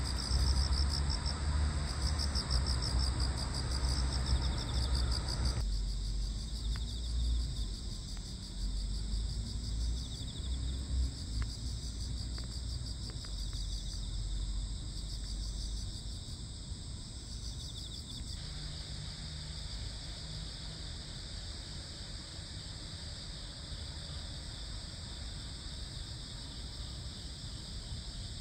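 A chorus of crickets and other insects trilling steadily at several pitches, with a rapid pulsing chirp among them that stops about two-thirds of the way through. A low rumble sits underneath, strongest in the first several seconds.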